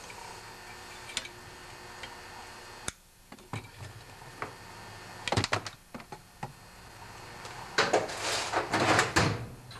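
Workshop handling sounds: scattered light clicks and knocks, then a louder rustling scrape near the end as parts or tools are moved by hand.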